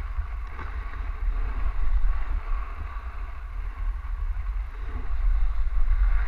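Wind buffeting a helmet-mounted GoPro's microphone as the skier glides downhill, a gusty low rumble over the hiss of skis sliding on packed snow.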